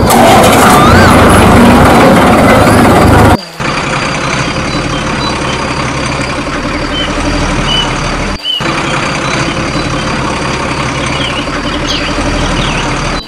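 Truck engine running steadily, a stock sound laid over the toy truck. It is loud for the first three seconds, then cuts to a slightly quieter steady stretch, with a brief break about eight seconds in.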